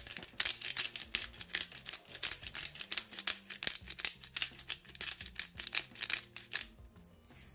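Pepper grinder being twisted over the dish, cracking black peppercorns in a rapid run of dry clicks and crunches, several a second, that stops near the end.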